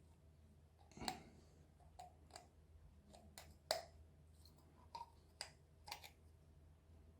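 Faint, scattered clicks and taps, about eight of them at uneven intervals, from a small 9-LED torch being worked apart by hand to free its glued-in LED array.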